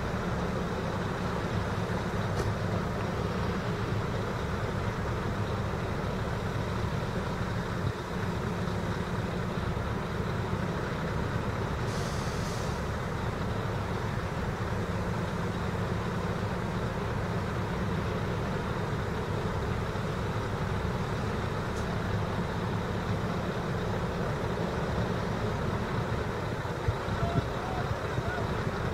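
Heavy diesel engines of a recovery truck and a wheel loader running steadily. A brief hiss of released air comes about twelve seconds in.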